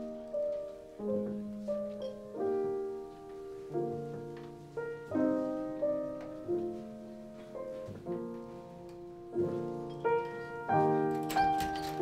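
Grand piano played solo: a slow, quiet classical-style piece of chords struck about once a second, each left to ring and fade.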